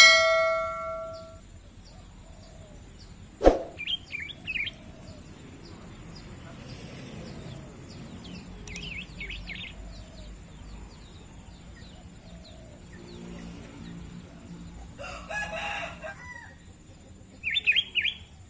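A small songbird chirping in three short bursts of quick, high chirps, about four seconds in, around nine seconds and near the end. A pitched tone fades out at the start, there is a sharp click about three and a half seconds in, and a brief rustling noise comes shortly before the last burst.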